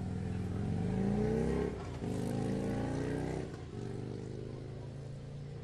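A vehicle engine accelerating, its pitch rising, dropping back at about two seconds in and again near the end as it shifts up through the gears.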